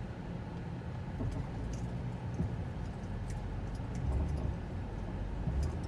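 Inside a 2006 Ford Fusion rolling slowly over a bump: a steady low engine hum with a few faint creaks and ticks from the front suspension, a noise like a creaking door. Its cause is unknown; ball joints and the strut tower have been suggested.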